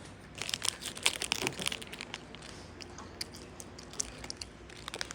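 Crinkling and crackling of plastic or paper packaging being handled, densest in the first two seconds, then scattered lighter crackles.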